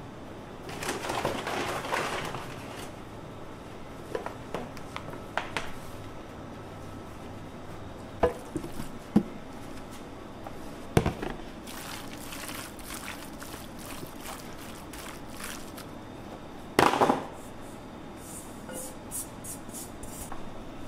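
Kitchen prep handling: a soft rush of powdered coating flour poured from a cup into a stainless-steel bowl, then a few sharp knocks of steel bowls and trays being handled, and a louder short rush well past halfway.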